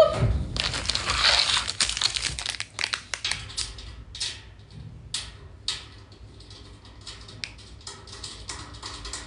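Rustling and scattered light clicks and knocks as the parts of a white shelf unit are handled and fitted together by hand, busiest in the first couple of seconds.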